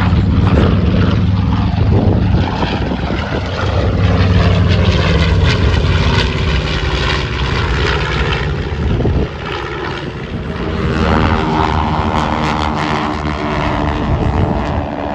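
Twin radial piston engines of a B-25 Mitchell bomber droning loudly as it makes a low pass, the pitch sliding down as it goes by. About nine seconds in the sound drops suddenly and is replaced by the steadier drone of a formation of propeller warbirds.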